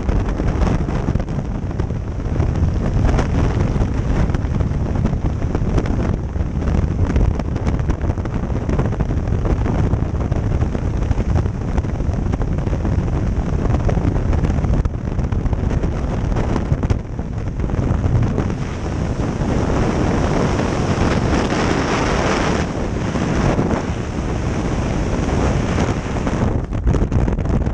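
Freefall wind rushing over the microphone of a skydiver's camera: a loud, steady rush of air buffeting the mic.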